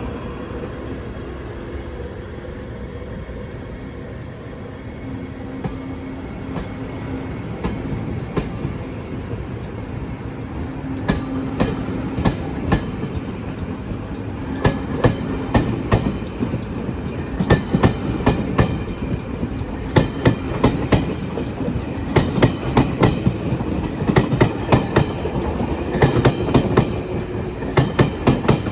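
A Taiwan Railway E500 electric locomotive-hauled train pulling away and gathering speed, with the hum of its Toshiba IGBT traction motors. From about a third of the way in, a rhythmic knocking from the wheels sets in and quickens as the train speeds up: the pounding of out-of-round (flat-spotted) wheels.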